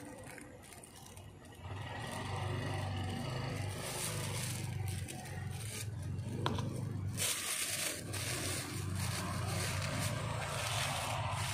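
Thin plastic bags crinkling and rustling as bags filled with cooking oil are handled, twisted and knotted by hand. A low steady hum comes in about two seconds in and carries on underneath.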